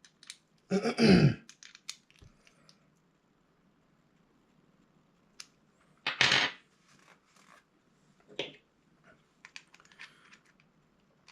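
Small, sparse clicks and handling noises of a little tool working the screw of a power knob on a spinning reel, with a louder short rasp about six seconds in and another about eight seconds in.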